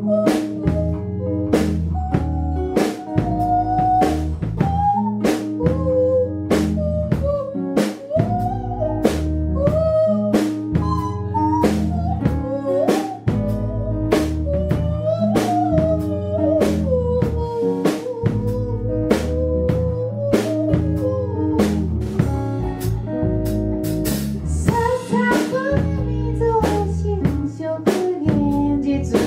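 Live band music: a drum kit keeps a steady beat under a bass line and a wandering lead melody.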